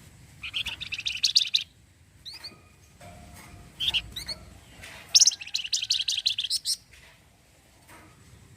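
Flamboyan (Javan fulvetta) singing: two rapid chattering trills ('cretet') of about a second and a half each, with short sharp up-slurred whistles between them.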